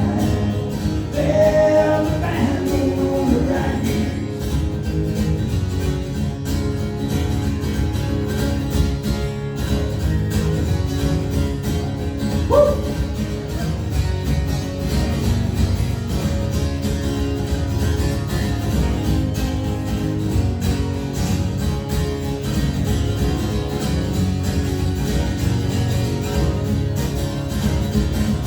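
Live rock band playing with electric guitar, bass and drums: a vocal line over the band in the first few seconds, then mostly instrumental playing with a short sliding note about halfway through.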